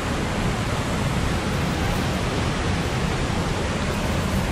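Steady rush of whitewater cascading over rocks in a mountain creek, an even full roar with no change.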